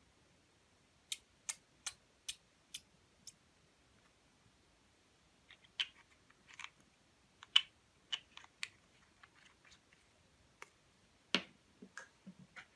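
Clear slime being handled, making small sharp clicks and pops: a run of six evenly spaced clicks that fade, then irregular crackly clicks, and one louder, fuller pop near the end.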